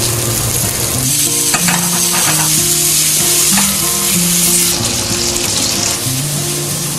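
Floured fish fillets frying in hot oil in a steel pan, sizzling steadily, with a quiet melody of low notes underneath.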